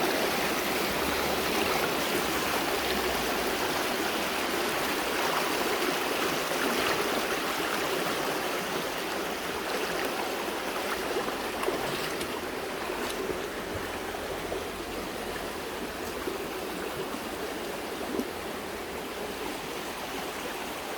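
River rapids rushing: a steady wash of fast-flowing water, easing a little toward the end.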